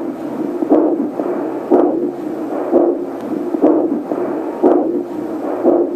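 Cofoe fetal Doppler's speaker playing the pulse of the mother's abdominal artery: a steady beat about once a second, in time with the mother's heartbeat and slower than a fetal heartbeat, which the device reads at around 70.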